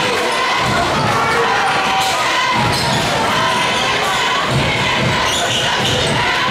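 A basketball bouncing on a court, heard as irregular low thumps over steady crowd noise of many voices talking and shouting.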